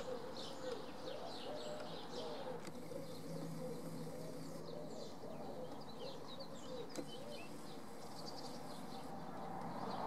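Many small birds chirping and twittering over a steady low background hum, with a couple of faint clicks.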